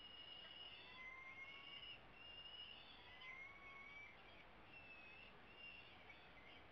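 Peregrine falcon chicks' food-begging calls: faint, thin, drawn-out high calls repeated one after another, most held level and a couple rising slowly in pitch, over a steady background hiss.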